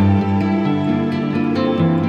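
Soft new-age background music with plucked-string notes over sustained tones.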